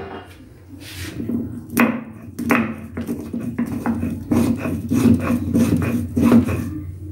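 Stone grinding: a nora, the hand stone, rubbed back and forth on a shil, the flat grinding stone, crushing tulsi leaves, ginger and black peppercorns into a wet paste. The scraping strokes repeat about twice a second.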